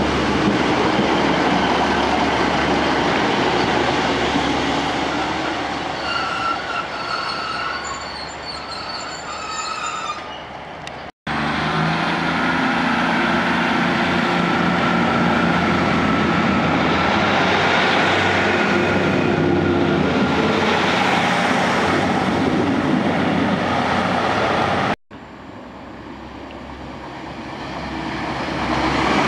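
Diesel multiple-unit trains at station platforms, in three cut-together shots. First a diesel unit pulls out with some intermittent wheel squeal. Then a Class 150 Sprinter's diesel engines run with a slowly rising whine. Last, a Class 185 unit approaches, growing louder near the end.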